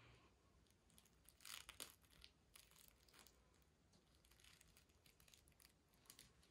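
Near silence, with a handful of faint, brief rustles of bedding; the clearest come about one and a half seconds in.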